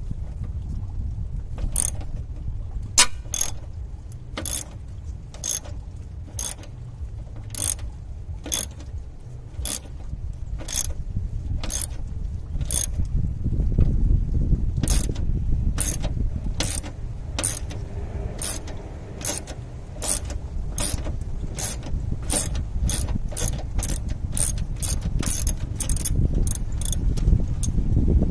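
Ratchet wrench clicking as it loosens 10 mm bolts: evenly repeated sharp clicks, about one a second at first and coming faster, near two a second, toward the end, over a low background rumble.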